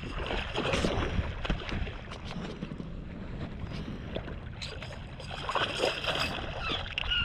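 A hooked bass splashing and thrashing at the water's surface beside a kayak, in irregular bursts, with a louder spell of splashing a little past halfway.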